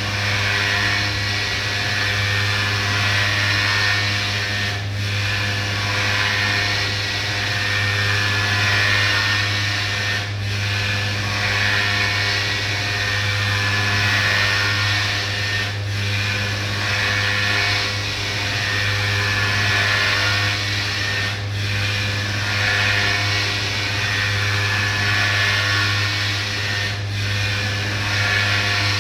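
CNC milling machine's high-speed spindle cutting a prosthetic part: a steady whine with a low hum beneath, broken by a brief dip about every five and a half seconds.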